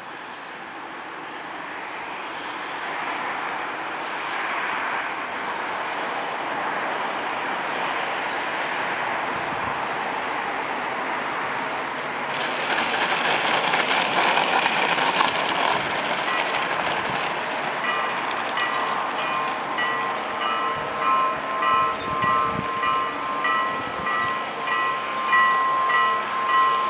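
FMS T-28 Trojan 1400mm electric radio-control plane approaching and landing: a rushing sound that grows louder, turning to a brighter, louder hiss about twelve seconds in as it touches down and rolls across the asphalt, then fading. From about two thirds of the way through, music with chime-like ringing tones and a pulsing beat comes in.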